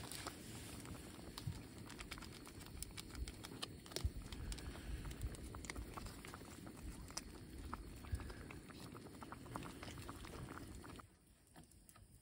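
A pot of noodles boiling on a gas canister stove: steady bubbling with many small pops. It drops away suddenly about eleven seconds in, as the stove is turned off.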